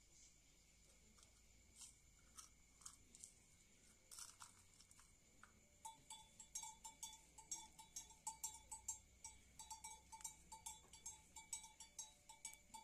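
Small hand bell rung during the puja: faint, repeated ringing strikes at about three a second, starting about six seconds in. Before that, only a few faint clicks and taps.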